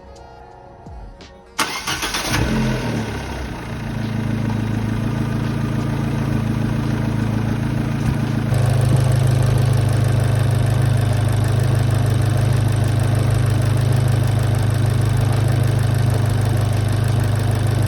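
Abarth 500's 1.4-litre turbo four-cylinder engine starting about a second and a half in, then idling steadily, a little louder from about eight seconds in. A new genuine ribbed drive belt is fitted, and no belt squeal is heard: "totally quiet".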